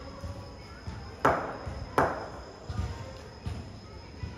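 Two sharp knocks about three-quarters of a second apart, a ball bouncing on the concrete floor and striking a cricket bat, each with a short echo.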